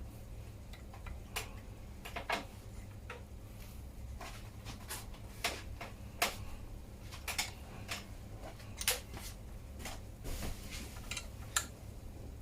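Irregular metal clicks and taps from an Allen key working the pinch bolts on a bicycle crank arm as they are tightened, over a steady low hum.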